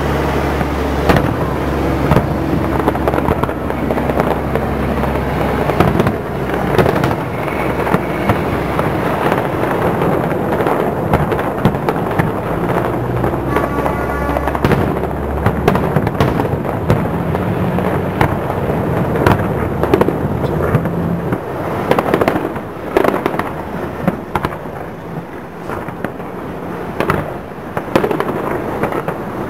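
Fireworks display: a dense, irregular run of shell bursts and crackling, many bangs close together. A steady low hum runs underneath and fades out about eight seconds in.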